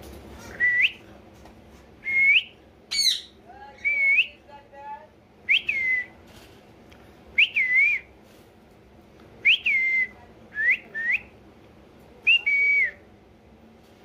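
Alexandrine parakeet whistling: about ten short whistled notes at roughly the same pitch, each a sharp rising or falling glide, one every second or two, with a harsher screech and brief chatter about three to five seconds in.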